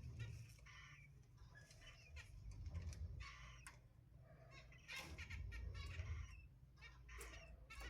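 Cockatiel chicks calling in a string of short, repeated cries, some in quick runs, with brief gaps between them.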